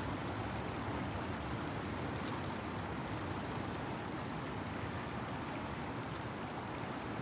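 Steady low rushing background noise with no distinct bird calls or other events.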